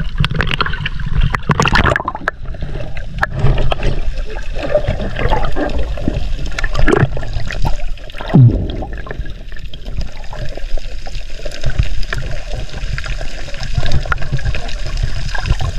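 Sea water sloshing and gurgling, heard muffled with the camera under the surface, with scattered small knocks and splashes.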